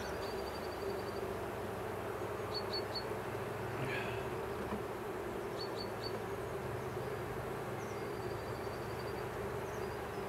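Honeybee colony buzzing steadily as a steady hum from the open hive while its frames are being worked.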